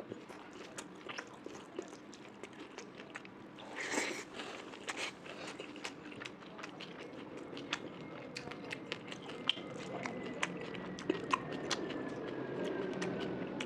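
Close-miked chewing and biting of a curry-and-rice meal: wet mouth clicks and smacks throughout, with a louder crunch about four seconds in.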